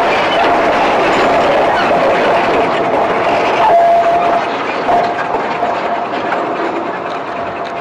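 Narrow-gauge sugar-cane train of empty open wagons rolling along with a diesel shunting locomotive, wheels clattering on the rails with a thin steady squeal of wheel on rail. The locomotive passes about four seconds in, and the sound then slowly fades as the train moves off.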